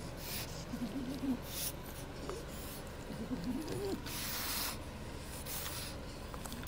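French Bulldog dam licking and nuzzling her newborn puppy on a fleece blanket: repeated wet, scratchy rubbing sounds, the longest about four seconds in. A couple of faint short whimpers come about one second in and again around three seconds in.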